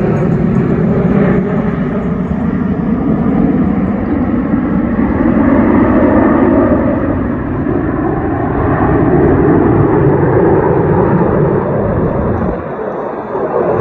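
Formation of twin-engine jet fighters from an aerobatic display team passing overhead: a loud jet-engine roar that swells twice and eases near the end.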